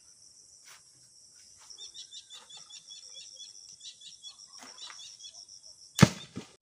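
A single heavy thud about six seconds in, a coconut dropped from the palm landing on the ground. Under it runs a steady high insect drone, with a quick series of high chirps a few seconds in.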